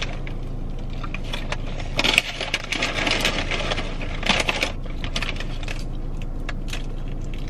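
Eating sounds: a mouthful of burrito bowl being chewed, with many small clicks and scrapes of a plastic fork in a paper bowl and two short rustling stretches, over a steady low hum.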